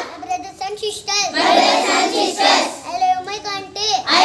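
A young child's high voice singing in short phrases.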